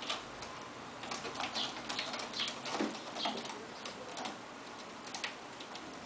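Kittens playing on a carpeted cat tree: irregular light clicks, scratches and soft thumps from claws and paws on the sisal posts and carpeted platforms, with a few short high squeaks.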